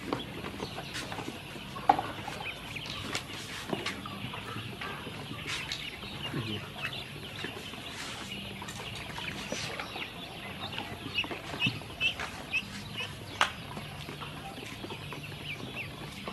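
A group of ducklings peeping, many quick short high chirps overlapping, with a few sharp clicks.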